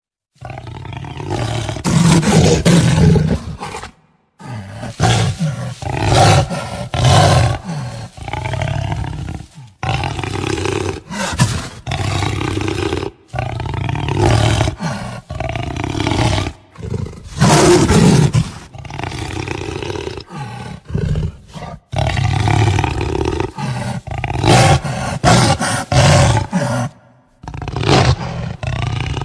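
Jaguar growling and roaring in repeated deep, rasping grunts, heard as a series of separate recordings joined by abrupt cuts.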